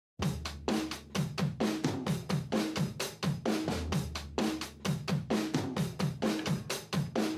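Music: a drum kit playing a steady rock beat on its own, with kick drum, snare and cymbals, about four hits a second.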